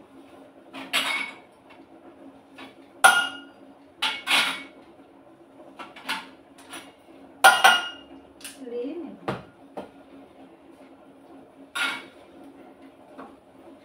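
Stainless steel tumblers and a saucer knocking and clinking against each other and the counter while tea is made. About a dozen irregular sharp metallic clinks, several ringing briefly.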